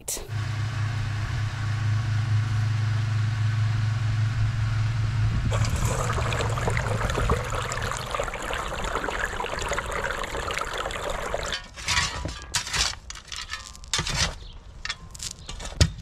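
Water gushing and splashing from the outlet of a submersible pump as it drains a pondless-waterfall reservoir onto soil, over the pump's steady low hum. About twelve seconds in this gives way to the scrape and crunch of a shovel digging in gravel.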